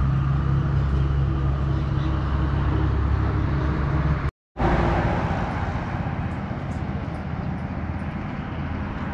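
A steady, low engine drone with a constant hum. It drops out for a moment about four seconds in, then carries on slightly quieter.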